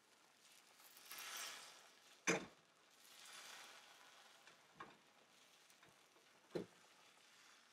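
Slotted fish spatula scraping and pushing soft, setting egg around a ceramic nonstick skillet, soft swishes broken by three light clacks of the spatula against the pan, the loudest about two seconds in.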